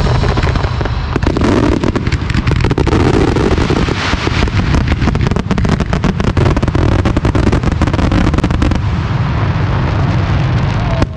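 Aerial firework shells bursting in a dense barrage, dozens of sharp bangs and crackling reports in quick succession under a steady low rumble. The barrage thins out about nine seconds in, typical of a display's closing finale.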